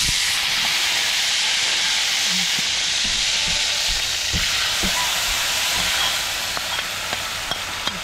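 Hot oil sizzling in a wok as whole spices fry, stirred with a metal spatula with a few light scrapes and taps. Ground chilli spice paste is spooned into the oil, and the sizzle eases a little about six seconds in.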